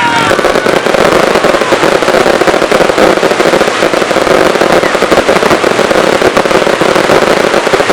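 Fireworks going off as a dense, rapid run of crackling pops, with no single big bang standing out.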